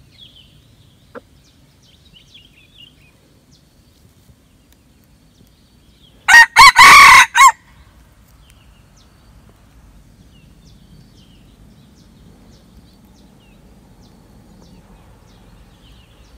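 A red junglefowl rooster crows once, loudly, about six seconds in: a short crow of a few quick notes lasting about a second. The rest is faint outdoor background.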